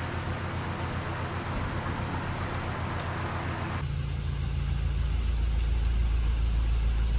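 Narrowboat diesel engine ticking over with a steady low pulse under an even hiss of rushing water. A little under four seconds in the sound changes abruptly to a louder, deeper low rumble with little hiss.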